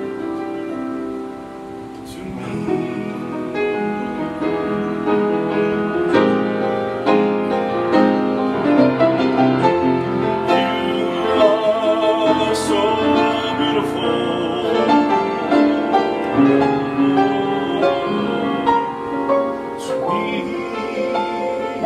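Piano playing a slow ballad introduction, chords and melody notes held and changing steadily.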